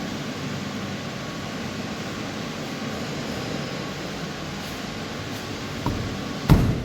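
Steady fan noise from cold-storage refrigeration and air-handling equipment. There is a faint click near the end, then a short knock.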